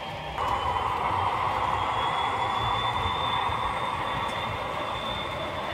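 OO gauge model Class 58 diesel locomotive and MGR hopper wagons running past on the track: a steady running noise of motor and wheels, getting louder about half a second in, with a thin high whine over it.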